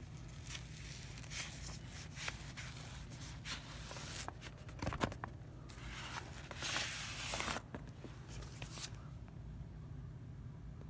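Plastic shrink wrap and a cardboard record jacket being handled and opened by hand: a run of crinkling and rustling with a few sharp clicks, loudest about two-thirds of the way in and stopping shortly before the end.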